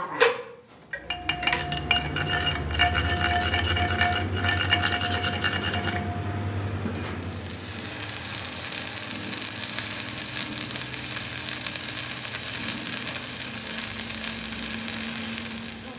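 Electric arc welding, the arc crackling and hissing steadily as weld metal is built up on a broken truck suspension trunnion shaft. The first few seconds are louder, with a low hum under the crackle.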